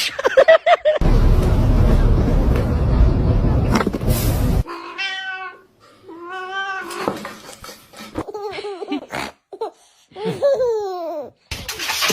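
A loud rushing, rumbling noise for about three and a half seconds, then a cat meowing several times, the last meow a long falling one.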